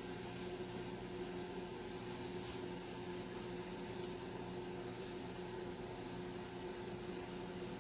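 Steady machine hum, a constant drone with a steady tone over a faint hiss.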